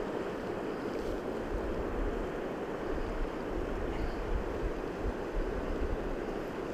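Fast river water rushing steadily over riffles, with wind buffeting the microphone in an uneven low rumble.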